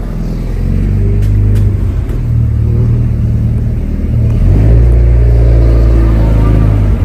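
Car engine running at low revs with light throttle as the car reverses in, getting louder and deeper about two-thirds of the way through as more throttle is given.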